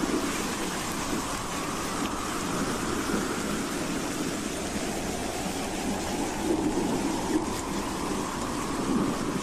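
Wind howling: a steady rushing noise with a faint whistling tone that drifts slowly in pitch, and low gusts swelling now and then.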